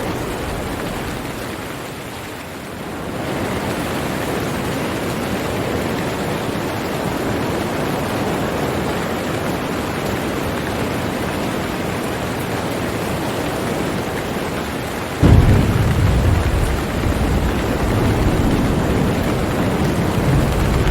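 Steady rain hiss. About fifteen seconds in, a deep rumble of thunder comes in suddenly and keeps rolling under the rain.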